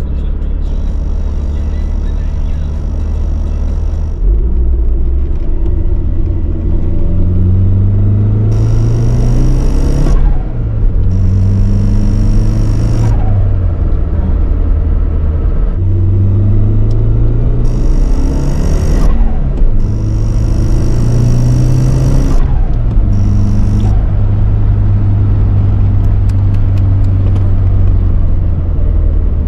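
Nissan CA18DET 1.8-litre turbocharged four-cylinder engine pulling hard through the gears of a 200SX S13: the revs climb and drop sharply at each shift, about four times, with a high whine on top during the pulls.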